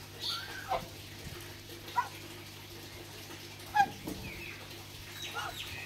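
Young geese giving a few short, separate calls a second or two apart.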